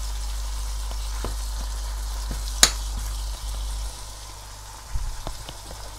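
Chicken curry frying in a stainless-steel pan, sizzling steadily while a spatula stirs it, with small scrapes and one sharp clack of the spatula on the pan a little before three seconds in. A low hum underneath drops away about four seconds in.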